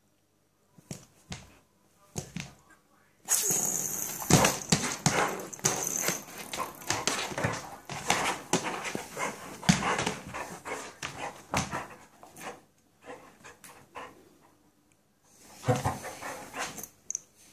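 Basset hound barking and whimpering as she pounces and paws at a spinning top on a hard floor, with a dense clatter of clicks and scrabbling from about three seconds in until about twelve seconds. A second short burst comes near the end.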